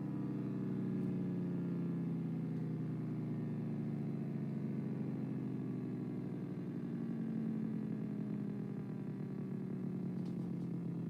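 Gent's air raid siren winding down, its wail falling slowly and steadily in pitch as the rotor loses speed.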